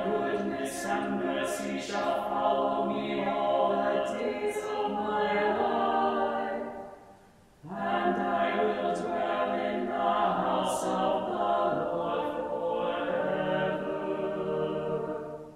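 A small church choir singing in several parts in two long phrases of held notes, with a short breath between them about seven and a half seconds in.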